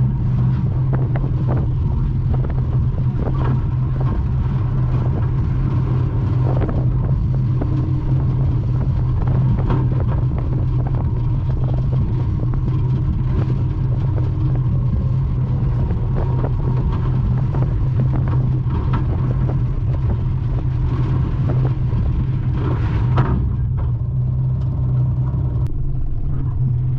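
Morris 1100's four-cylinder engine running steadily at low revs, heard from inside the stripped cabin, with frequent light rattles and knocks from the loose bodywork and one sharper knock near the end.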